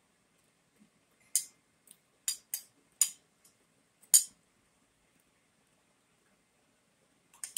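Metal spoon clinking against a ceramic bowl while scooping food: a handful of sharp, separate clinks through the first half, the loudest about four seconds in, and one more near the end.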